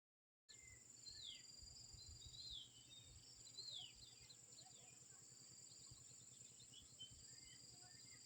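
Faint field ambience: a steady high-pitched insect drone with repeated short, falling bird chirps over a low rumble, cutting in suddenly about half a second in.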